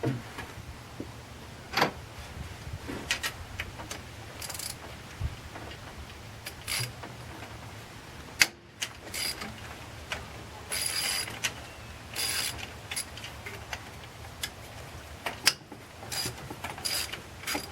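Socket ratchet wrench clicking in short bursts on its back-swings as bolts are worked loose, with a few sharp metallic knocks of tools against metal between them.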